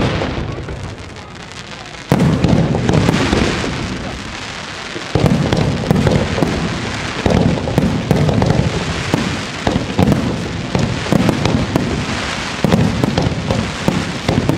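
Aerial fireworks shells bursting overhead: a deep boom about two seconds in and another about five seconds in, then a dense run of bangs and crackles with repeated booms to the end.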